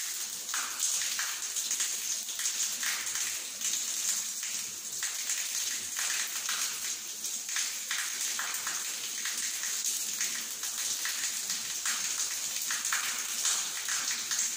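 Shower head running with a thin stream of water that splashes steadily onto a tiled shower floor.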